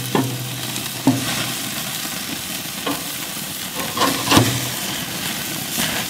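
Beef burger patties sizzling steadily on a gas grill over open flame, with a metal spatula knocking and scraping against the grill grates a few times as the patties are flipped.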